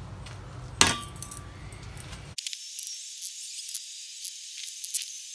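A single metallic clank of blacksmith tongs about a second in, with a brief ring. Then, after a sudden change, a thin high hiss with small scratchy ticks from hand-sanding a steel knife blade, with no low sound at all.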